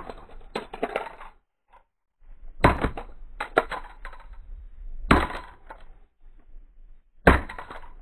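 A piece of car door smashing an MP4 player against concrete: three hard blows about two seconds apart, each followed by the clatter and clink of the player's broken circuit boards and pieces on the concrete.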